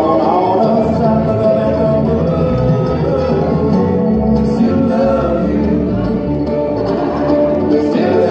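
Live bluegrass band playing, with fiddle, upright bass and guitar, heard from among the crowd.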